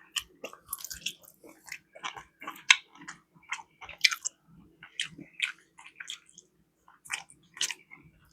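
A person chewing food close to the microphone, with irregular wet mouth smacks and clicks.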